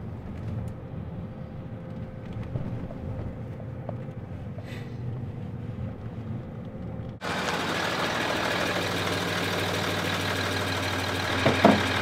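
Steady low rumble of a car's interior while driving. About seven seconds in it cuts abruptly to a louder sound from outside: a vehicle's engine idling with a steady hiss.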